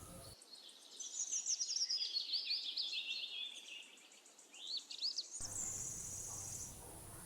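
A songbird singing a quick run of trilled notes that steps down in pitch, then two short rising whistles. After that comes a steady high-pitched buzzing trill of an insect.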